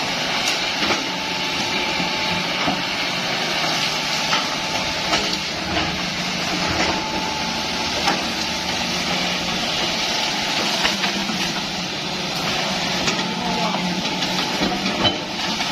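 Hitachi hydraulic excavator working through bamboo and brush: the diesel engine runs steadily under load while frequent short sharp cracks and snaps sound throughout.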